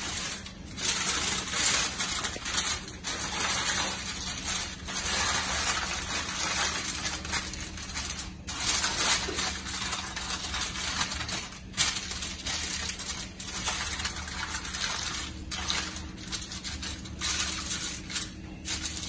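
Aluminium foil crinkling and rustling as it is folded around a salmon fillet, with a few short pauses; a low steady hum underneath.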